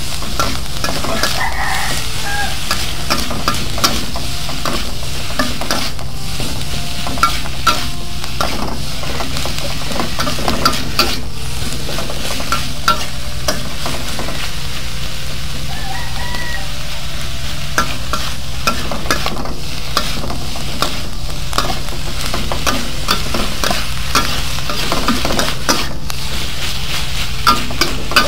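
Shredded oil palm heart sizzling in a wok of hot oil and pounded chilli paste, stirred with a spatula that scrapes and clacks against the pan again and again over the steady sizzle.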